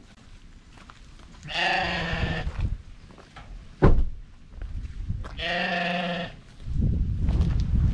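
Small livestock animal bleating twice, each call about a second long and held at a steady pitch. A single sharp knock comes between the calls, and low rumbling noise starts near the end.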